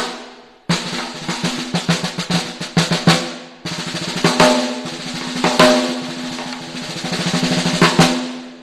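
Tama Starphonic 14x6 maple snare drum, its top head tuned low and the snare wires on, played in two busy passages of soft strokes and louder accents; the first starts about a second in and the second about three and a half seconds in. A low drum tone rings under the wire buzz and dies away at the end.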